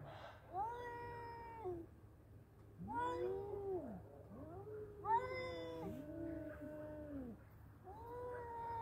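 Two male domestic cats caterwauling at each other in a standoff: long, drawn-out yowls that rise and fall in pitch, one voice higher and one lower, sometimes overlapping. This is tomcats' threat yowling before a fight.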